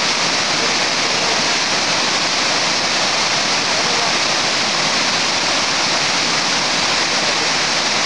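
Waterfall rushing steadily: a loud, even hiss of falling water that does not change.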